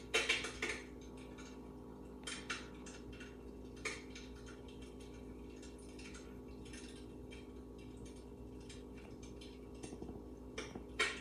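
Electric fireplace insert's built-in fire-crackling sound effect: irregular pops and crackles over a steady hum, with a few louder pops at the start and near the end.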